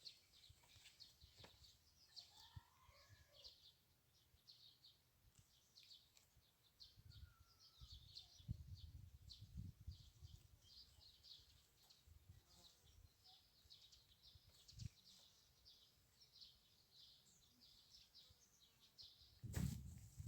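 Small birds chirping and singing, faint, with a few low dull thuds around the middle and a loud sudden knock near the end.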